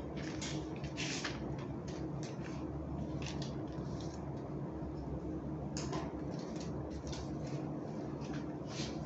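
Hands handling and pressing pastry dough on a work surface: irregular soft squishy touches over a steady low hum.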